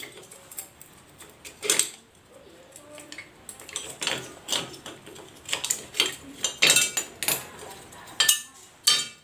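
Metal tools and motor parts clinking and tapping as they are handled, with about a dozen sharp clinks at irregular intervals.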